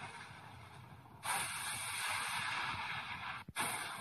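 A steady, wind-like hiss that starts abruptly about a second in and breaks off for an instant near the end before carrying on.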